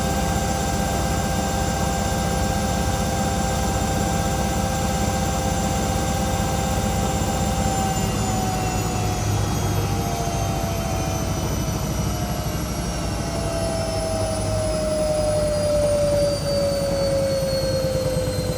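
Washing machine on its spin cycle: a loud whine over a heavy rumble, likened to a jet engine. Its pitch starts to fall slowly about halfway through.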